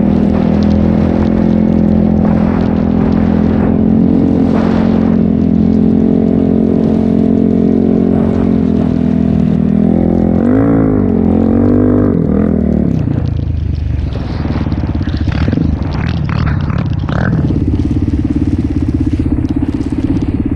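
Kawasaki KFX400 ATV's single-cylinder four-stroke engine running through a full HMF exhaust. It holds steady high revs, is blipped up and down a few times about ten seconds in, then drops to a lower steady run.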